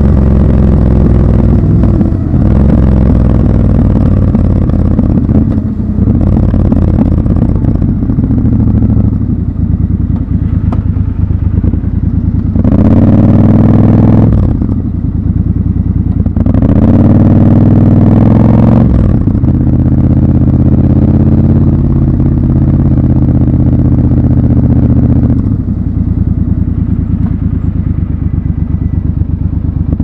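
Triumph Scrambler 1200 XC's parallel-twin engine running under way. Around the middle the revs climb twice, the pitch rising each time before dropping off sharply; otherwise it runs fairly steadily.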